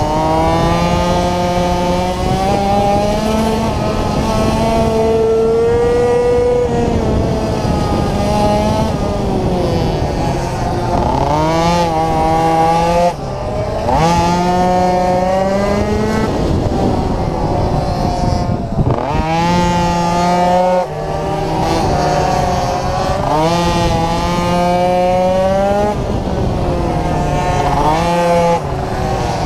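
Onboard sound of a racing motorcycle engine at full effort, its pitch climbing and falling again and again as it accelerates and eases off through the corners. The level drops suddenly and briefly twice, about 13 and 21 seconds in.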